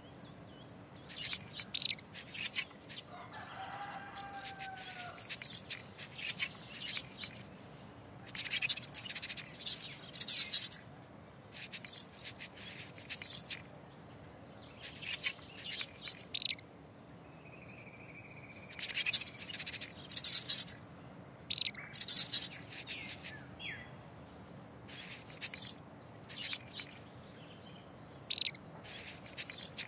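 Woodland songbirds chirping in quick, high-pitched bursts that come back every second or two, over a faint steady background, with one lower arching call about three seconds in.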